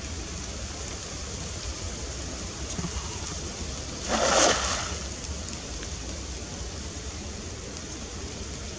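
A single loud splash about four seconds in, as a cast net lands on the water, over a steady outdoor hiss.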